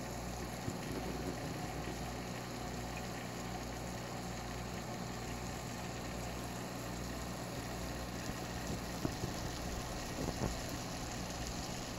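Steady low mechanical hum, with a few faint ticks near the end.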